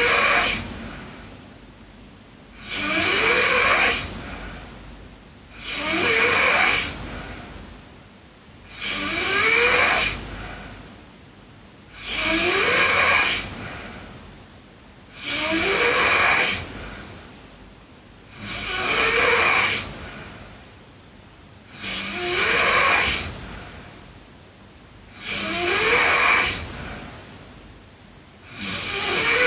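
A sleeping girl snoring steadily, one loud snoring breath about every three seconds. Each begins with a short rising tone and trails off into a breathy rasp, with quiet gaps between.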